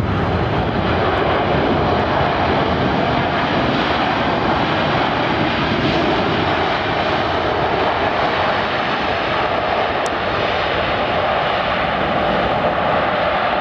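Boeing 777-300ER's GE90 turbofans in reverse thrust on the landing rollout, a loud steady rush of jet noise, mixed with the hiss of spray thrown up off the wet runway.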